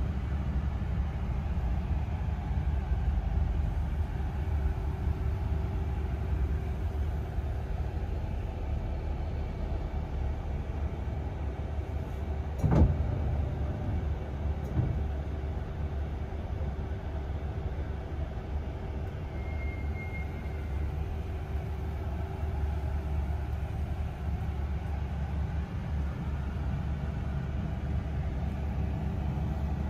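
Steady low rumble of a double-decker bus running, heard from inside the upper deck, with a sharp knock about halfway through.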